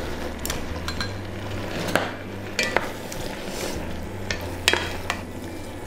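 Wooden spatula stirring beaten egg into vegetables and tofu in a stainless-steel pot, over a steady sizzle of the cooking food, with a few sharp clicks as the spatula knocks the pot.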